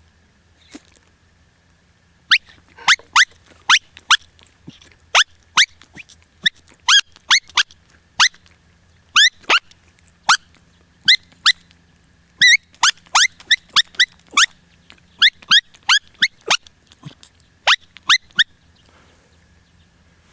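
Coyote call sounding a long run of sharp yips, each a quick downward squeal, coming about two a second in uneven clusters: calling meant to bring coyotes in.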